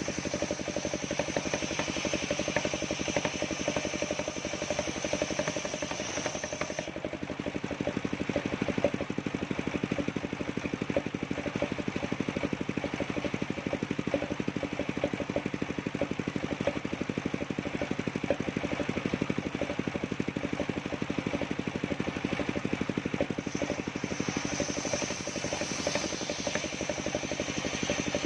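Engine of a mobile circular sawmill running steadily. A high whine sounds over it for the first seven seconds or so, drops away, and returns near the end.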